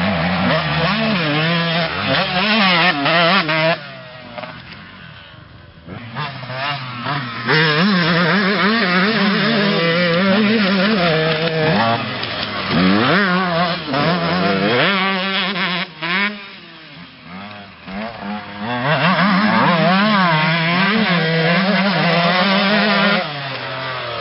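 Motocross dirt bike engine revving hard, its pitch climbing and dropping again and again through throttle and gear changes. It fades twice as the bike moves off along the track, then comes back loud.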